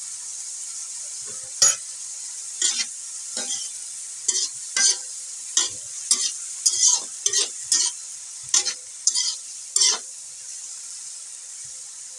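Metal spatula scraping and stirring string beans in a wok over a steady frying sizzle: about a dozen quick, irregular scrapes that stop about ten seconds in, leaving only the sizzle.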